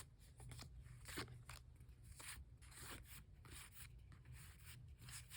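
Faint rustling and sliding of Pokémon trading cards being handled and flipped through one after another, a string of short soft scrapes.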